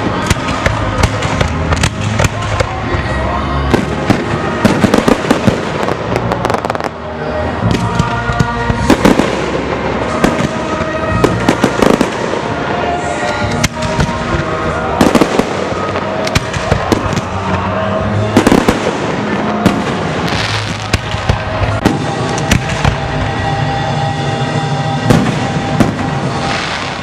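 Fireworks display: many shells bursting and crackling in quick succession, with music playing over loudspeakers underneath.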